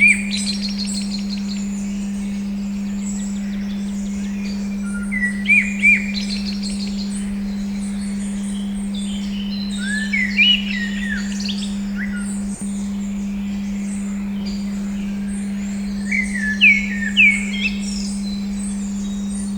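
A steady 200 Hz pure tone, dipping briefly about twelve and a half seconds in, laid over songbirds chirping. Louder phrases of short, slurred calls come about every five to six seconds, with fainter chirping behind them.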